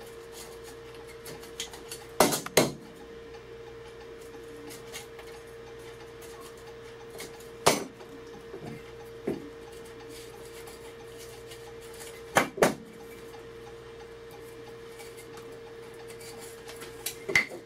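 A handful of sharp metallic clicks and taps, some in pairs, from steel dividers and hand tools handled on a woodworking bench while a part is marked out, over a steady faint hum.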